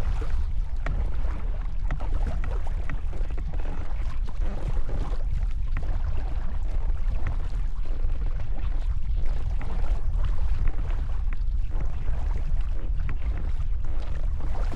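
Paddle strokes through choppy lake water from a folding canoe: splashing and water sloshing with small clicks and drips, over a steady low rumble of wind on the microphone.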